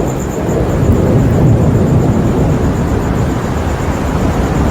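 Loud, steady low rumbling noise with no separate strokes or pitched tones.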